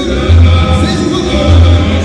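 Loud Latin dance music with a heavy, repeating bass line, played through a sonidero sound system.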